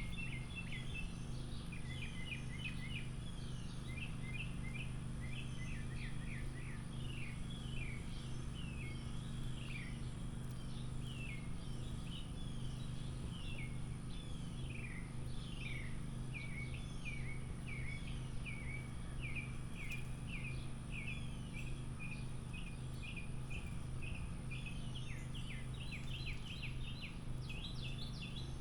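Small songbirds chirping busily: a steady stream of short, quick chirps that drop in pitch, with a denser flurry near the end, over a steady low hum.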